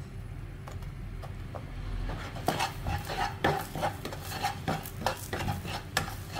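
Spatula scraping and stirring salted duck egg yolk as it fries in a nonstick wok. A few light knocks at first, then from about two and a half seconds in, quick repeated scraping strokes against the pan.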